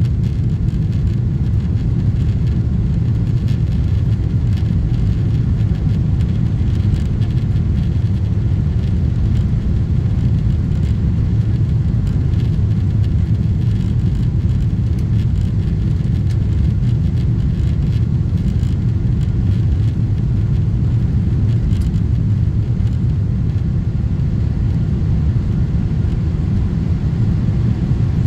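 Steady low rumble of jet engines and rushing air heard inside an airliner cabin during descent on approach to landing.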